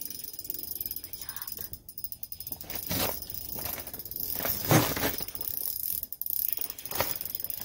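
Spinning reel on an ice rod being cranked, its gears giving a fast run of fine clicks as a fish is reeled up. A few sharp knocks come in between, the loudest just under five seconds in, as the small walleye is handled and unhooked.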